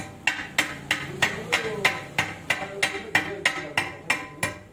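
Hand hammer beating metal on a stone anvil block, steady blows about three a second, each with a short metallic ring.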